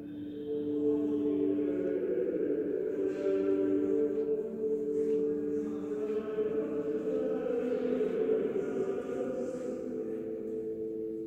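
Slow choral music: several voices holding long, overlapping notes that change pitch every second or two.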